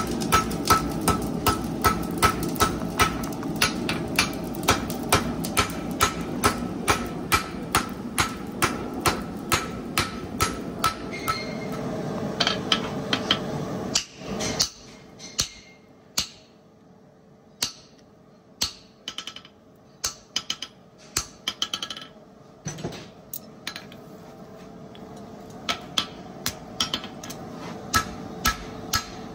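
Hand hammer striking a red-hot hand-forged toe extension horseshoe on a steel anvil. About three blows a second over a steady background rush for the first half; after a short break the blows come sparser and irregular, quickening again near the end.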